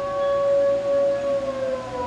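A loud, steady siren-like wail on one held note that begins to slide down in pitch about a second and a half in, like a siren winding down.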